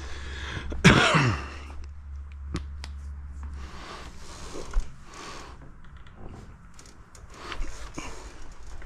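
Parts being handled and pushed into place by hand: a short squeak that falls in pitch about a second in, then scattered clicks and knocks. A low hum stops a little under four seconds in.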